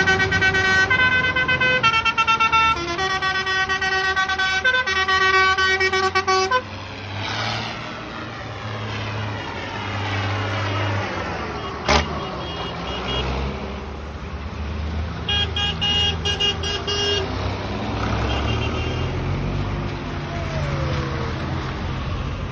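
Vintage tractors driving past with a low engine drone, while a vehicle horn sounds a run of held notes at changing pitches for about the first six seconds and again briefly later. A single sharp crack about twelve seconds in.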